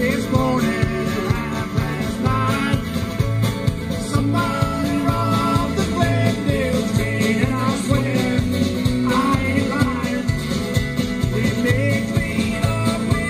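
Live band playing country-rock music with a steady beat.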